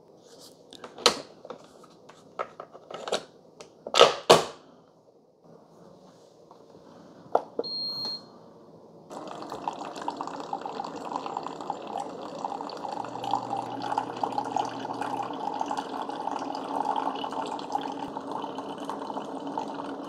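A series of sharp clicks and knocks and one short high beep, then, from about 9 seconds in, two single-serve coffee makers, a Keurig K-Supreme Plus Smart and a Ninja DualBrew Pro, brewing together: a steady pumping and hissing with hot coffee streaming and splashing into mugs.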